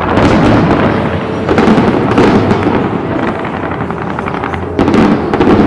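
Aerial fireworks display: dense volleys of bangs and crackling from shells bursting overhead, coming in waves with the heaviest run near the end.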